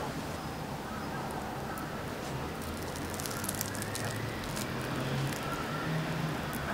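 Crisp fried crust of a karinto manju (deep-fried brown-sugar bun) crackling as it is broken apart by hand, a flurry of small crackles about midway. A low steady hum sits underneath.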